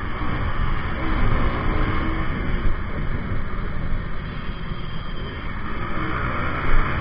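Wind rushing over the microphone of a handlebar-mounted camera on a moving KTM RC200, with the bike's single-cylinder engine running under load beneath it as it rides at road speed through traffic.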